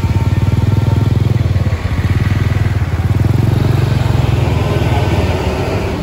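Tour bus diesel engine running close by: a deep, rapidly pulsing rumble, loudest over the first few seconds and easing off near the end as it moves away.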